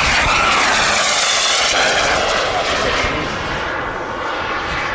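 Miniature jet turbine of a large radio-controlled jet plane flying past: a loud rushing whoosh with a sweeping, phasing shimmer, loudest in the first two seconds and easing slightly as it climbs away.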